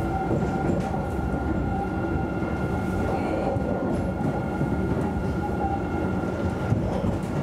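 Alstom Citadis tram running along street track, heard from the driver's cab: a steady rumble of wheels on rail with a constant high hum over it.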